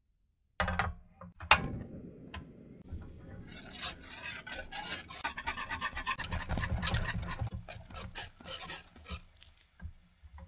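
Wire whisk beating thick, stiffening custard (pastry cream) in a metal saucepan on the stove, rapid scraping and clinking strokes against the pan, with a sharp knock about a second and a half in. The custard has set thick on the heat, as pastry cream does when its starch thickens.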